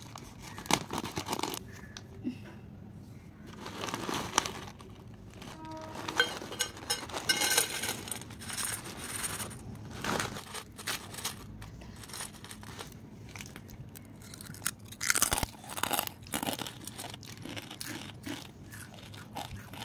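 Crisp fried potato sticks (spicy aloo chips) crunching in many sharp crackles, along with the crinkle of the plastic snack packet.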